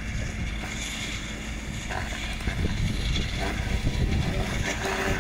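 Grapevine pruning machine running along a trellised row, lifting the wires and stripping off the canes: a steady mechanical drone with a constant low hum.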